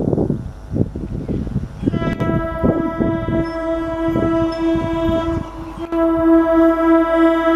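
Electric multiple unit train passing, its wheels knocking over the rail joints, then its horn: a long steady blast from about two seconds in, a brief break, and a louder blast near the end.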